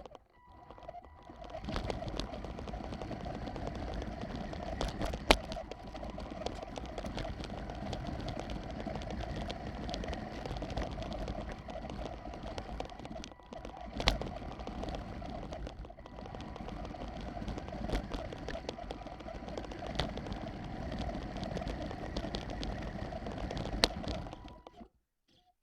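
Small RC truck's electric drivetrain running steadily under way, a fluctuating whirr, with a few sharp knocks along the way; it cuts off suddenly near the end.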